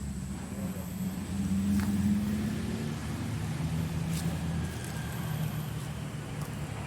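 Steady low engine hum of motor traffic, swelling slightly about two seconds in.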